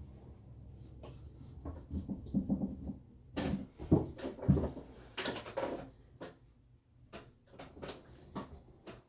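Irregular knocks, clicks and rustles of things being handled and moved about, busiest in the middle.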